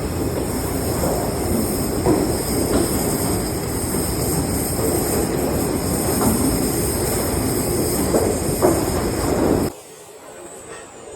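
Electric iron-cutting saw running and cutting through metal stock: a loud, steady grinding noise with a high whine over it. It cuts off suddenly near the end.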